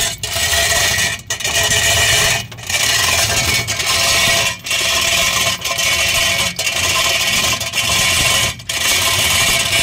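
Hand-operated chain hoist being worked, its chain rattling and scraping through in repeated pulls with a short break about once a second, while it holds the truck's transmission.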